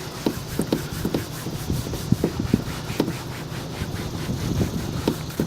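Damp polishing cloth rubbed in short, irregular strokes over a textured plastic car bumper.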